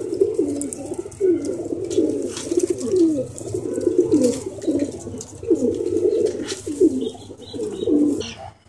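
Domestic pigeons cooing over and over, several low calls overlapping, stopping just before the end.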